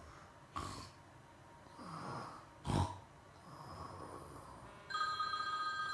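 A child snoring, a few separate snores about a second or two apart, the loudest near the middle. About five seconds in, a steady electronic ringing tone starts.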